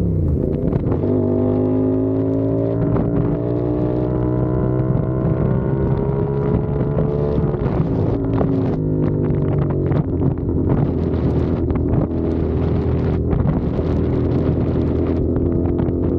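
CFMOTO 450SR's parallel-twin engine under way: the revs drop at a gear change, climb steadily for about seven seconds, drop again at a second shift about eight seconds in, then hold for steady cruising. Wind buffets the microphone throughout.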